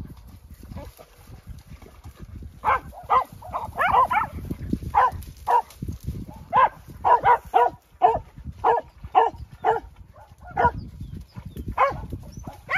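Podenco Orito barking in short, high yelps, a quick run of them starting a few seconds in, with a brief pause about two-thirds through; a low rustling underneath.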